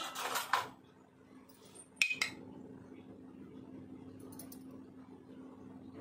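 Kitchen dishes and utensils clattering: a quick run of clinks that dies away within the first second, then two sharp clinks about two seconds in, followed by a low steady hum.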